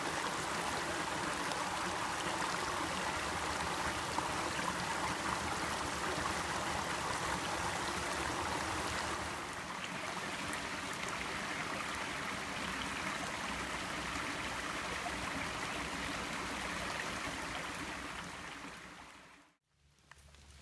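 Steady rush of running water from a flowing stream, fading out shortly before the end.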